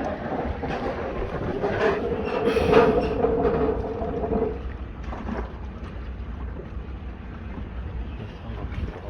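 A long, steady horn-like note held for about four seconds, then stopping, over wind buffeting the microphone.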